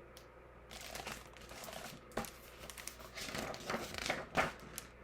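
Paper rustling and crinkling in a string of short, irregular crackles, starting about a second in and stopping just before the end: a picture book being handled and its page turned.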